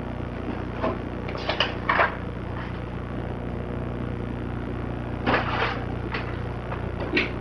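Scattered short clicks and clatters of equipment being handled on a workbench, over a steady low hum.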